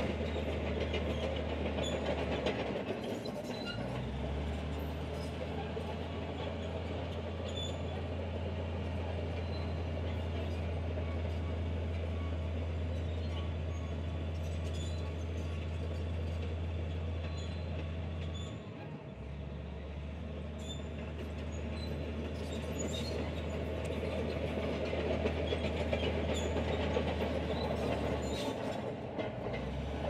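Komatsu crawler bulldozer working: a steady diesel engine hum with the metallic clatter and clicking of its steel tracks. The low hum drops out briefly a few times.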